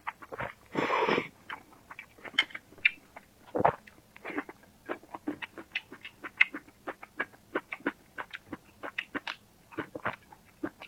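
Close-miked eating: wet chewing and lip-smacking clicks, several a second and irregular, with a louder rushing sound about a second in.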